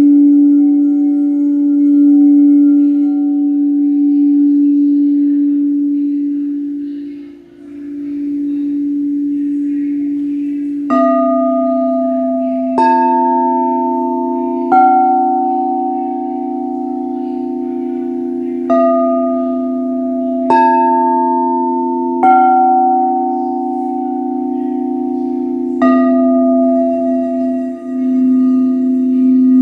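Crystal singing bowls ringing: one bowl holds a steady low tone for about ten seconds, then from about eleven seconds in the bowls are struck seven times, each strike starting fresh ringing tones over the continuing low drone.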